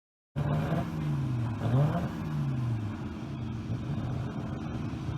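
An engine revving. Its pitch falls, climbs sharply about a second and a half in, falls away again, then settles into a steady run.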